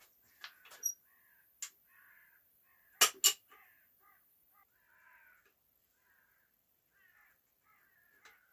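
Two sharp clicks about three seconds in from a caulking gun being squeezed to push glue out of its cartridge, with a few lighter clicks before them. Crows cawing faintly in the background.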